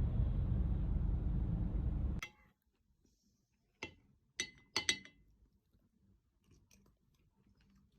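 A steady low rumble stops abruptly about two seconds in. Then four light clinks of dishware, each with a short ring, the last two close together, over quiet room tone.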